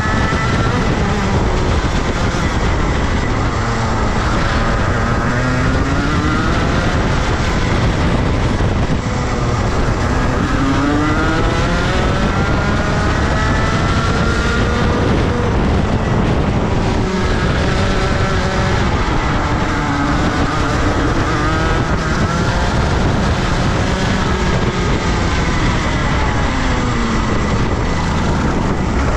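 Rotax Senior kart's 125 cc single-cylinder two-stroke engine on a flying lap. Its pitch climbs as it accelerates and drops away going into the corners, over and over.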